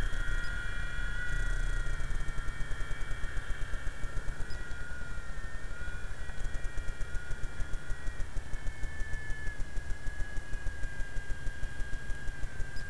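Radio-controlled model helicopter flying overhead: a steady high whine from its motor and rotors that dips and rises slightly in pitch as the throttle changes, over a low rumble of wind on the microphone.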